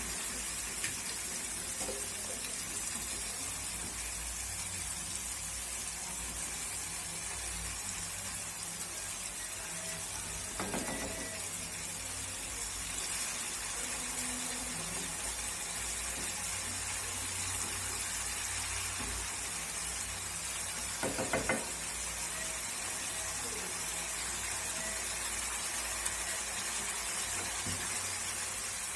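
Onion gravy and tomato purée sizzling steadily as they fry in oil in a pan, with two brief louder clatters about ten seconds apart.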